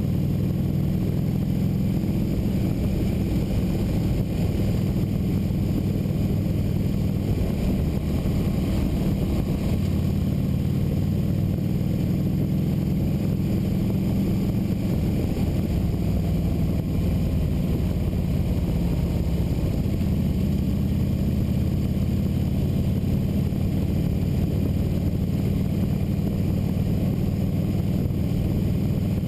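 Motorcycle engine running steadily while riding at an even speed, heard from on the bike, with a constant rush of road and wind noise behind it.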